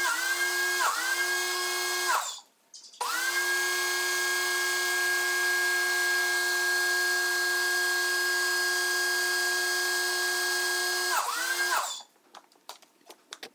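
Greenworks 1600 PSI electric pressure washer running as its trigger is pulled and released, its motor whine rising in pitch as it spins up each time, with spray hiss. It runs in spells: a short burst with a dip about a second in, a brief pause, then a steady run of about eight seconds, which ends in a quick stop and restart before it cuts off near the end.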